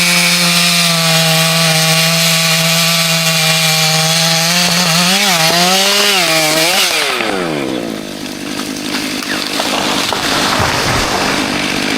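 Chainsaw engine running at high revs. Its pitch wavers about halfway through, then drops, and the saw runs on at a lower, rougher note as it cuts into the wood under load.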